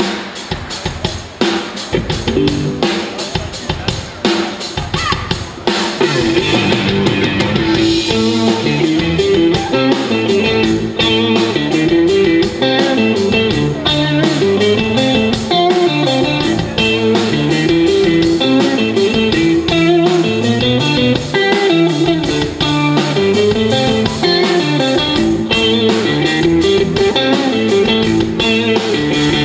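Live rock band playing an amplified instrumental passage: drums lead at first, then electric guitar and bass guitar come in fully about six seconds in, playing a riff over the drum kit.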